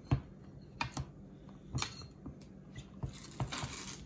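Bullet blender's plastic blade base being twisted off the blending cup: a series of sharp plastic clicks and knocks, with a short scraping rasp of the threads about three seconds in.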